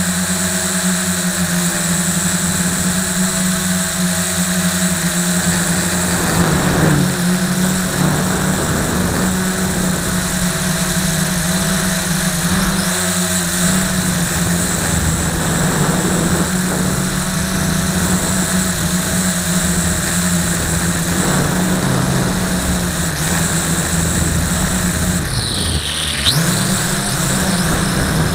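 LaTrax Alias quadcopter's motors and propellers buzzing steadily, heard from a camera strapped to the airframe. The pitch shifts with throttle changes about six seconds in and again midway, and near the end it dips sharply and climbs back.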